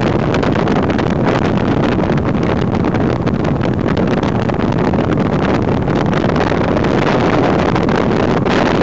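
Motorboat engine running steadily at speed, with wind rushing over the microphone.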